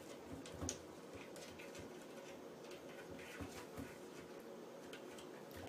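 Faint, scattered taps and light scratches of a cat's paws and claws working at a kitchen cabinet door and its knob, one slightly louder knock about a second in.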